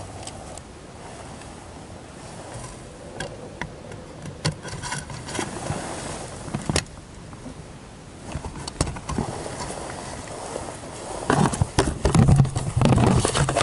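Fishing tackle being handled on a small boat: scattered clicks and light rattles as the line and rig are worked by hand, then a louder stretch of rubbing with a low buzzing hum near the end.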